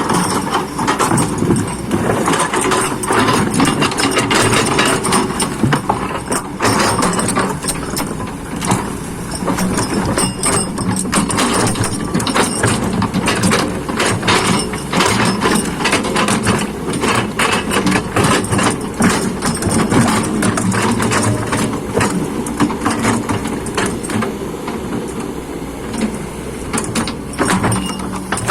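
Excavator's diesel engine running steadily, with frequent short metallic clanks and knocks from the working machine.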